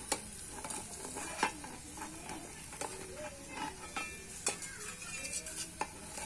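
Food frying in oil in a small pan over a wood fire, sizzling steadily, with repeated clinks and scrapes as a slotted metal spatula and a metal spoon stir and turn the pieces in the pan.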